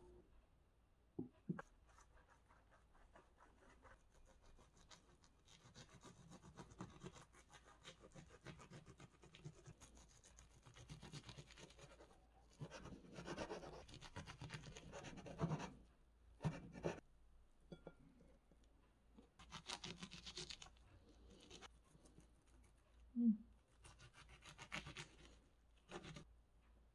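Kitchen knife sawing through gimbap rolls on a wooden cutting board: several bouts of faint rasping scrapes as the blade works through the laver, with a few short knocks. The laver has gone soggy, so the rolls tear and don't slice cleanly.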